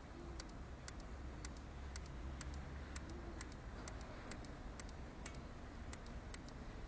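Renault Duster side mirror creaking in frosty weather: a string of short sharp ticks, about three a second, over a low steady hum. The creak comes only in frost, from both mirrors, and the owner suspects a factory defect.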